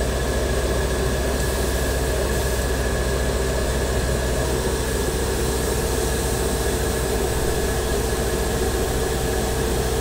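Airbrush spraying thinned primer: a steady hiss of compressed air over a steady low hum.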